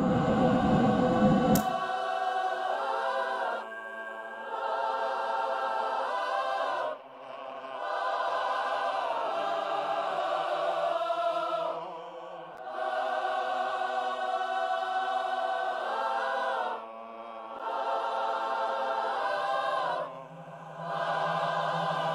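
Soundtrack music: a wordless choir holding slow, sustained chords in phrases a few seconds long with short pauses between them. It begins after a low rumbling noise that cuts off suddenly near the start.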